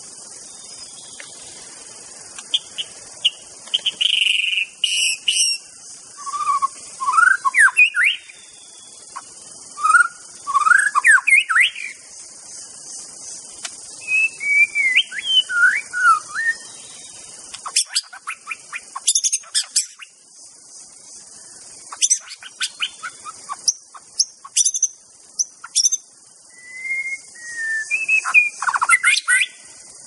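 White-rumped shama singing: bouts of clear, gliding whistled phrases mixed with sharp high chips, coming every few seconds over a steady high hiss.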